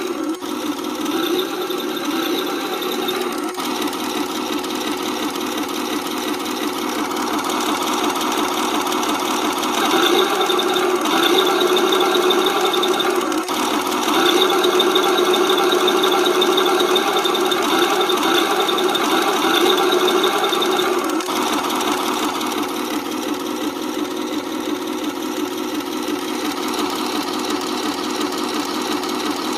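RC Tiger 131 model tank's electronic sound unit playing its tank-engine sound through the model's small speaker: a steady idle with a fast knocking beat. It gets louder about ten seconds in and again from about fourteen to twenty-one seconds, as if throttled up, then drops back to idle.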